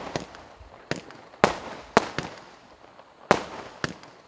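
A 25-shot firework cake firing: a string of sharp bangs roughly half a second apart, each trailing off, with a pause of about a second before the last two.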